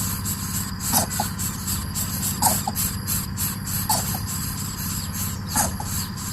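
Coucal chicks calling from the nest: short double calls repeated about every second and a half, over a steady low hum and steady high-pitched tones.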